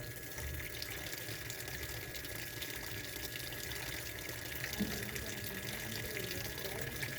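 Washing machine filling with water: a steady rush of water running in.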